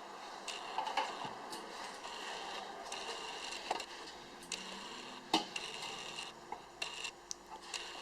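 Faint scraping and scattered light clicks and knocks of containers being handled while fuel is mixed.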